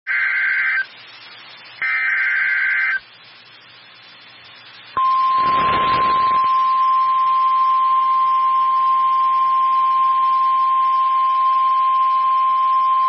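NOAA Weather Radio Emergency Alert System signal: two short shrill bursts of SAME digital header data with faint radio hiss between them, then about five seconds in the steady 1050 Hz weather radio warning alarm tone begins with a brief rush of static and holds unbroken.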